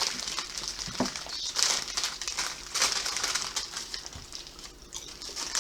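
A bag of Ruffles All Dressed potato chips crinkling in repeated bursts as it is opened and handled, then quieting near the end.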